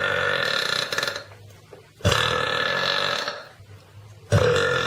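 A girl burping: three long, drawn-out burps in a row, each lasting a little over a second, with short pauses between them.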